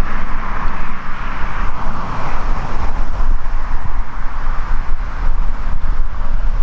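Wind buffeting the microphone: a steady, fluttering rumble over an even background hiss.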